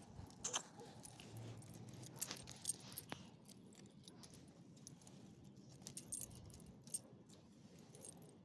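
Small metal pieces jingling in a few short, scattered clinks over a faint low background.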